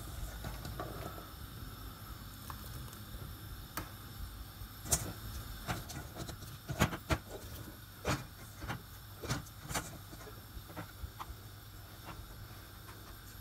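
Wooden spoon stirring thick melting cheese sauce in a metal saucepan, with scattered clicks and knocks of the spoon against the pan, most of them in the middle stretch. A low steady hum runs underneath.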